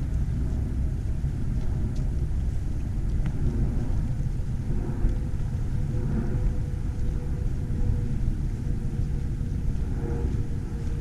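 Steady low rumble of outdoor background noise, with a faint steady hum.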